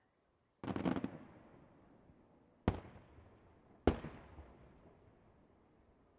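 Display fireworks going off: a short burst of rapid crackling about half a second in, then two sharp bangs about a second apart, each trailing off in a rolling echo.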